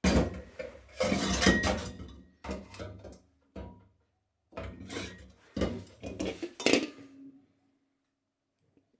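Metal objects clinking and clattering as they are handled, in several bursts with short pauses between them.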